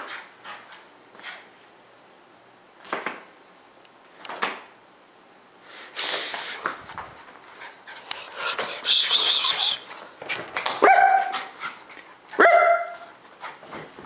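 Small dogs, Lhasa apsos, at play: several short scuffly noises, then two sharp, high barks near the end, a second and a half apart.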